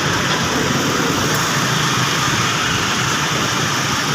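Steady rush of heavy rain mixed with road traffic.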